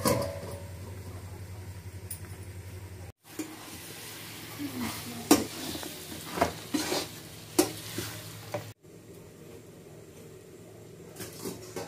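Chicken curry sizzling and frying in a steel kadai while a spatula stirs it, scraping and clinking against the pan. Near the end come a couple of light metal clinks.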